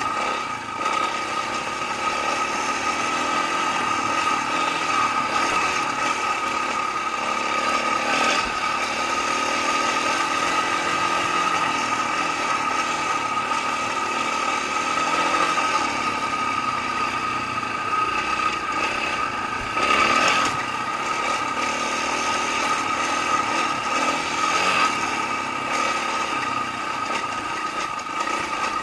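Dirt bike engine running steadily under way on a dirt trail, with a brief louder moment about twenty seconds in.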